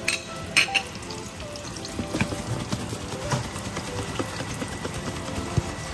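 Battered crappie backbones shallow-frying in hot oil: a steady sizzle with scattered sharp pops and crackles, under background music.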